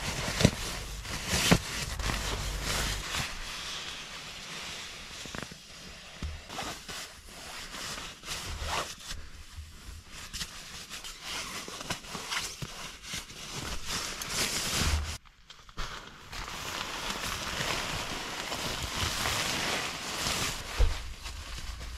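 Rustling and crinkling of nylon fabric as a down sleeping bag is stuffed into a stuff sack and an inflatable sleeping mat is handled, with irregular scuffs and knocks. In the last several seconds there is a steadier rushing hiss as the sleeping mat is folded and pressed down.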